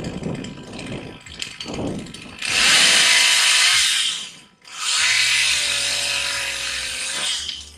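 Chainsaw run at full throttle twice, about two seconds and then about two and a half seconds, with a brief drop off the throttle between. It is preceded by a couple of seconds of lower, uneven noise.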